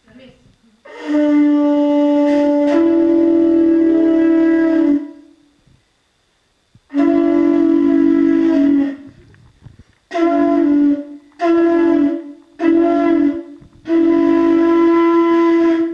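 Double flute played with two notes sounding together: a long phrase, a pause, then a string of shorter phrases that stop and start.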